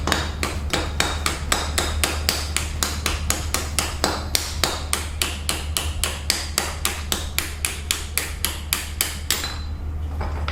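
Rapid hammer blows, metal on metal, about four a second, driving a cracked old wheel-bearing race off the front hub; the blows stop near the end. A steady low hum runs underneath.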